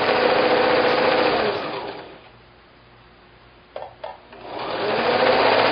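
Sewing machine stitching fabric strips together. It runs steadily, then slows and stops about two seconds in. After a short pause and a single click, it starts again and speeds back up.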